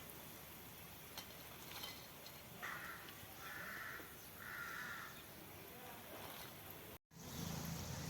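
A crow cawing three times, each call about half a second long, over a faint steady hiss.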